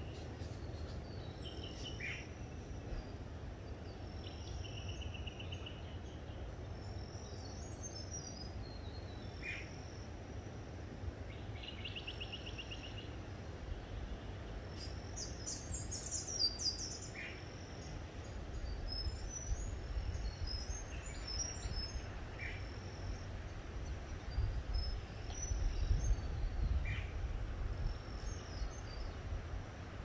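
Wild birds calling: short chirps every couple of seconds, a few brief trills, and a quick bright burst of calls about halfway through. A steady low rumble runs underneath and grows louder in the second half.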